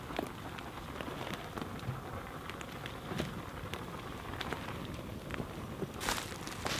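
Wood campfire crackling with scattered small pops, mixed with footsteps and rustling in dry leaf litter; the rustling grows louder about six seconds in as he steps forward carrying the pot.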